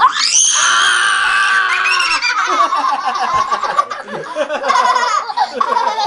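A young child screams into a stethoscope's chest piece: one long, high scream that rises at the start and is held for about two seconds. Children's laughter and excited shrieks follow.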